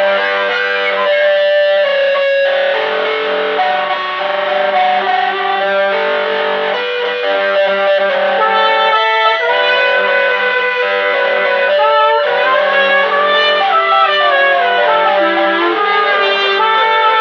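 Improvised instrumental music: electric guitar played through effects with some distortion, together with trumpet, over a steady low drone of held notes. From about halfway a melody line slides and bends up and down in pitch.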